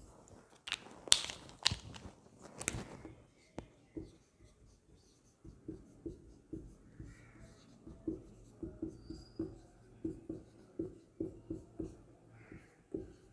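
Felt-tip marker writing on a whiteboard: a few louder, sharp scratchy strokes in the first three seconds, then a run of short, quick strokes as words are written.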